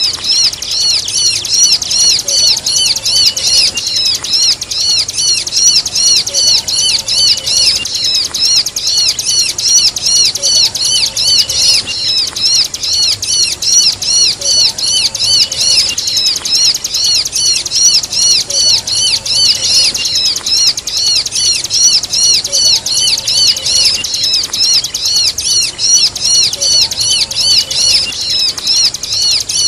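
Ciblek (bar-winged prinia) song combined with squeaky 'kejepit' calls, the sound of a pinched or trapped bird. It is an unbroken run of high, arching chirps repeating about three to four times a second.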